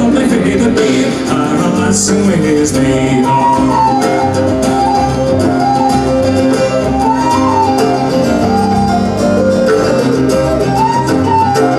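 Scottish folk band playing an instrumental passage: a whistle carries a melody that rises and falls over strummed acoustic guitar and a bass line.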